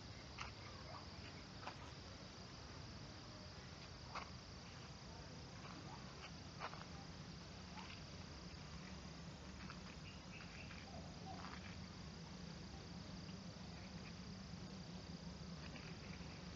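Insects chirping in a steady high drone, with a few sharp faint clicks scattered through the first half.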